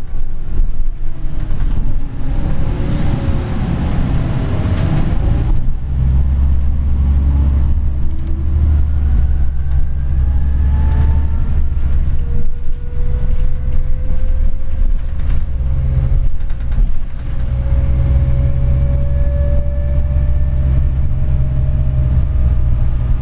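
Flyer DE41-LF diesel-electric hybrid bus heard from inside the cabin while under way: a strong low drone, with a rush of noise a few seconds in. Over it, a thin whine from the drive climbs slowly in pitch as the bus gathers speed.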